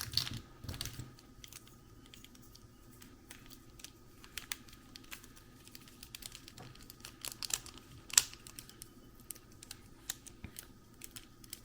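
Plastic pieces of a 3x3 speed cube clicking and clacking against each other as they are fitted into the partly assembled cube: a scatter of small irregular clicks, with a sharper one about eight seconds in.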